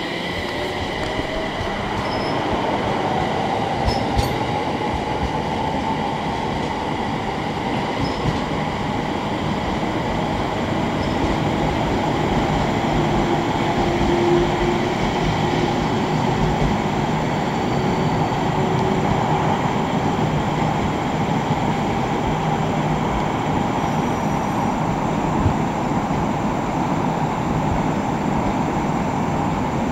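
A train at a station platform: a steady rumble that grows slightly louder over the first several seconds, with faint whining tones over it.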